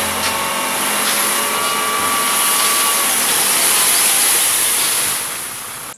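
Dump truck tipping a load of sand: the engine running the hydraulic hoist as the bed tips up, a steady noisy hiss with a faint whine, fading near the end.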